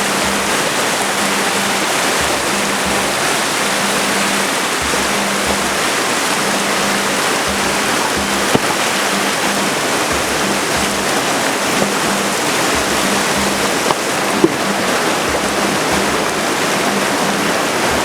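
Mountain river rushing steadily over rocks, a loud, even roar of water, with two brief sharp knocks, one about halfway through and one later on.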